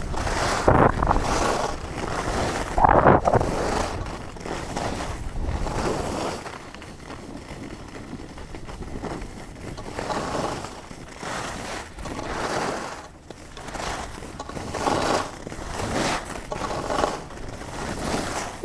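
Alpine skis scraping and carving over groomed piste snow. Each turn brings a swelling hiss, with a smoother, quieter glide in the middle.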